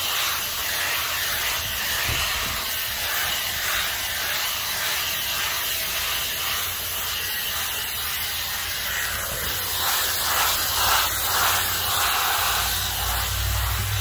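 POSEAG portable dog blow dryer running, blowing a steady hiss of air over a freshly bathed dog's wet coat; a low rumble comes in near the end.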